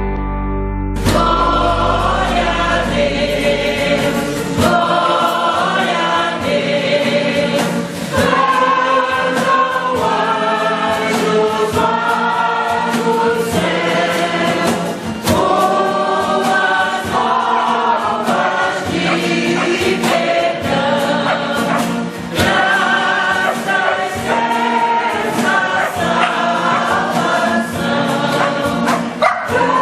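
A choir of men and women singing a Christian song together, starting about a second in. Short clicks and knocks are scattered through the singing.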